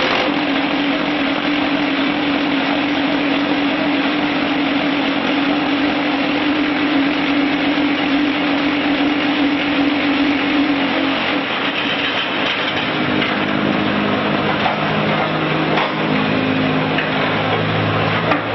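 QTJ4-25 automatic concrete block machine running: a loud, continuous mechanical clatter with a steady hum, which gives way to lower hums about twelve seconds in.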